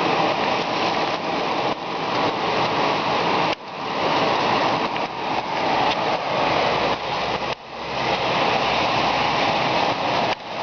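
Heavy rain pouring down in a thunderstorm, a loud, steady hiss of falling water. The level drops abruptly and builds back three times.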